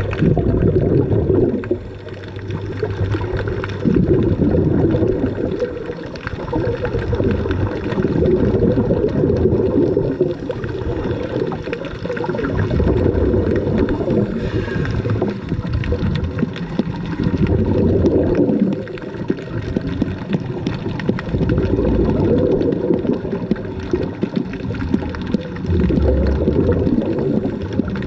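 Underwater bubbling and gurgling from scuba divers' exhaled breath streaming out of their regulators, a crackly low rumble that swells and eases every few seconds with each breath, heard from underwater.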